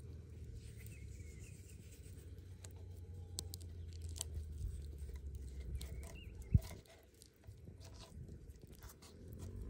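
Hands handling raw salmon steaks on a wooden cutting board as they are salted: small taps and clicks, with one sharp knock about six and a half seconds in. Faint bird chirps and a low rumble underneath.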